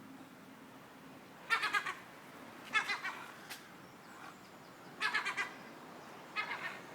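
Gull giving harsh alarm calls in four short bursts, each a quick run of staccato notes, as it attacks.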